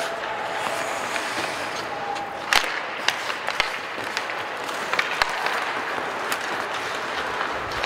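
Ice hockey rink ambience: a steady wash of arena and spectator noise, broken by sharp clacks of hockey sticks and puck around a faceoff, the loudest about two and a half seconds in.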